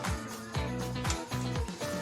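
Background music with a steady beat: a kick drum about twice a second under sustained synth or bass notes.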